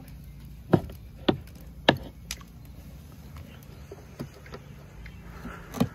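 Kitchen knife chopping grilled pork on a wooden cutting board: separate sharp knocks of the blade hitting the board, three loud ones about half a second apart in the first two seconds, a few fainter ones, then another loud one near the end.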